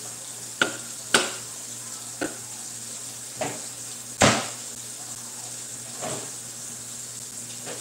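Several separate knocks and clunks, the loudest about four seconds in, as a can and plastic bottles are set down in a wooden kitchen cabinet and on top of a refrigerator, over a steady background hiss.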